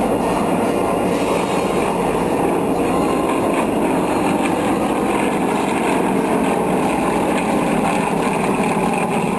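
Yakovlev Yak-52 aerobatic aircraft overhead, their nine-cylinder radial engines and propellers droning steadily.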